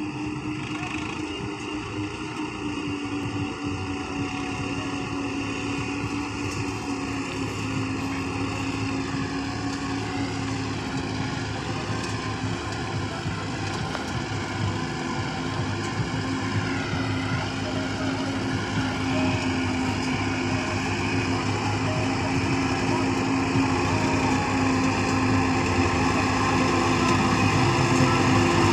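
Sonalika 750 RX tractor's diesel engine running steadily under load as it drives a maize forage harvester, with a second tractor alongside. The steady drone grows gradually louder as they come closer.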